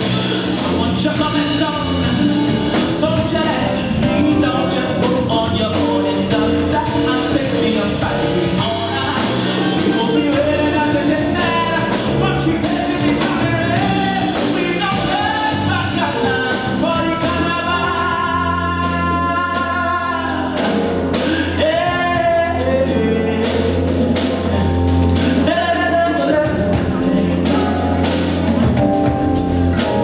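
A live small jazz band playing: saxophone, drum kit, bass guitar and keyboard, with a melody line held out in long notes about two-thirds of the way through.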